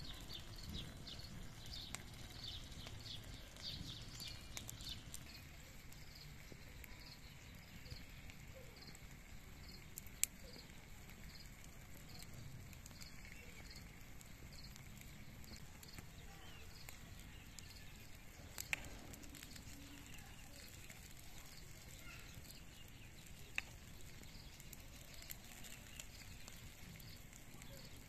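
Wood campfire burning with a low rumble and a few sharp crackling pops, under a high-pitched chirp that repeats steadily, faster in the first few seconds.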